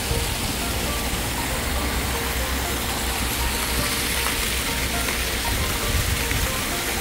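Steady rushing and splashing of water from artificial rock waterfalls and small fountain jets in a pond, with a low rumble underneath.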